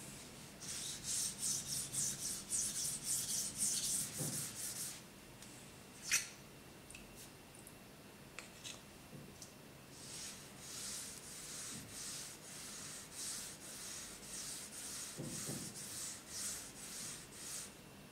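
A small chip of Okudo suita natural whetstone rubbed back and forth under the fingertips on a diamond plate, being flattened into a finger stone: a gritty scraping in quick, even strokes. The strokes stop for a few seconds near the middle, with one sharp click, then start again.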